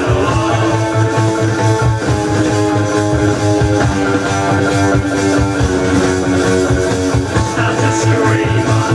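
Hard rock played from a 1971 vinyl LP: an instrumental stretch of electric guitar over steady held chords and a dense low end.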